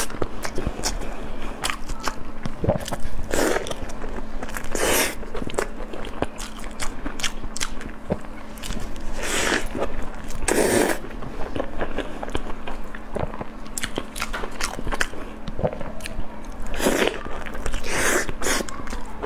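Close-miked biting and chewing of sauce-glazed chicken thighs: wet, sticky mouth sounds with many small clicks and several louder bites spread through.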